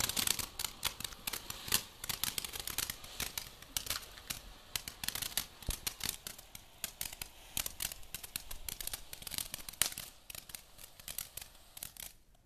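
Ground fountain firework spraying sparks with a dense, rapid crackle, which thins out and fades near the end.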